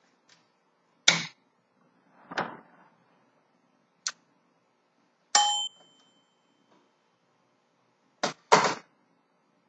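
Several sharp clicks and knocks of hard objects being handled, six in all with two close together near the end. The fourth is followed by a short metallic ring.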